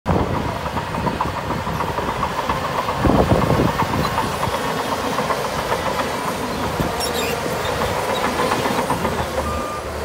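Heavy earthmoving machinery running: a diesel engine's steady rumble with constant metallic rattling, louder about three seconds in. A reversing alarm starts beeping near the end.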